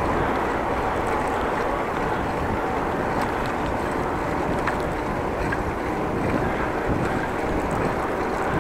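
Steady rush of wind on the microphone mixed with tyre and road noise while riding a bicycle at speed through city streets.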